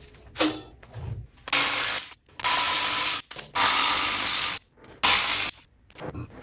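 A power wrench working the lug nuts on a Datsun 280Z's rear wheel, in four short bursts of about a second or less each, with brief pauses between them.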